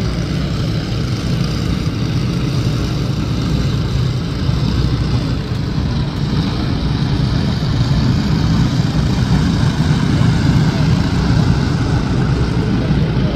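A pack of racing go-kart engines droning together as the karts circle a dirt oval, gradually growing louder.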